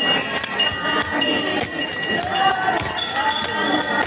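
Metal temple bells ringing with rapid, overlapping strikes and long-lingering high tones, over the voices of a crowd.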